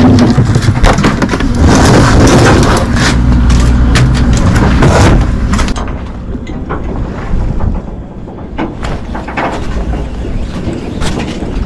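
Fishing boat's engine humming steadily under heavy wind buffeting and crackle on the microphone. About six seconds in the buffeting eases and the sound drops to a quieter engine hum over the water.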